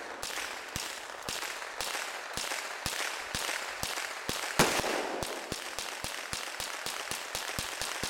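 AR-15 rifle fired in a rapid series of shots, about two a second, each echoing, with one much louder shot about halfway through.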